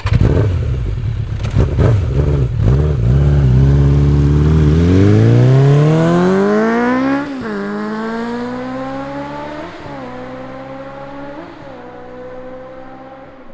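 Motorcycle engine just started, running with an uneven low note, then revving with a steadily rising pitch. About seven seconds in the pitch drops sharply, and it dips twice more as the sound slowly fades.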